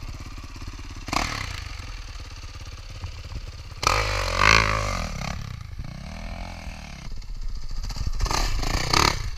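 Yamaha YZ450F single-cylinder four-stroke dirt bike engine running with a low thumping beat. It is revved hard about four seconds in, rising then falling in pitch, as the rear wheel digs into soft dune sand. It is revved hard again near the end.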